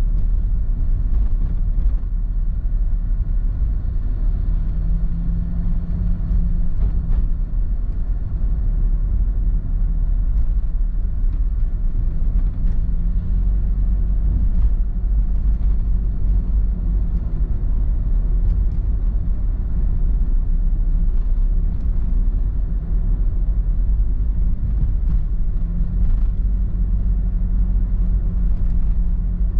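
A car driving, heard through a dashcam's microphone inside the cabin: a steady low rumble of road and engine noise. A humming engine note comes up for a few seconds three times.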